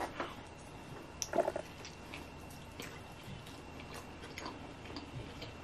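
Mouth chewing a bite of rotisserie chicken drumstick: faint, scattered wet clicks and smacks.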